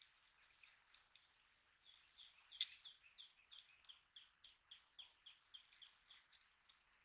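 Faint bird song: a bird repeats a short, down-slurred high note about three times a second for several seconds. A single sharp click sounds about two and a half seconds in.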